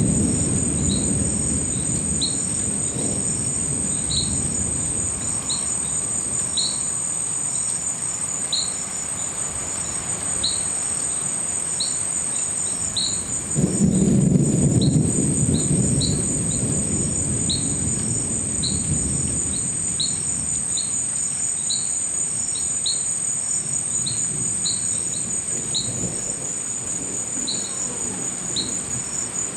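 Thunder rumbling, a roll at the start and a louder one about 14 seconds in, over crickets trilling steadily and a repeated short high chirp every half second or so.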